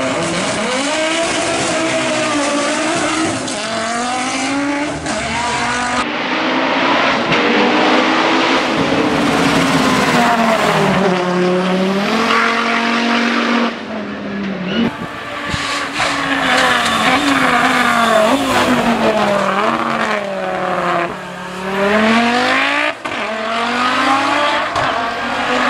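Hillclimb Audi S2 quattro's turbocharged inline-five engine at full race pace, its pitch climbing hard through the gears and dropping back at each shift, in several passes cut together.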